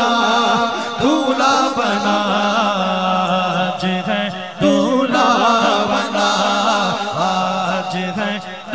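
A sehra naat, a devotional wedding song, sung in long ornamented vocal phrases over a steady low drone.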